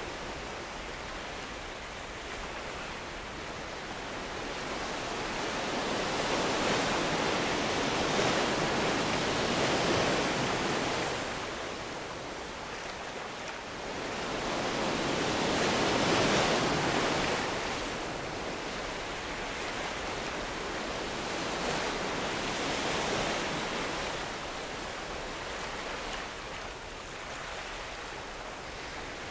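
Ocean surf: waves washing and breaking on a sandy beach, a steady rush that swells and fades every several seconds.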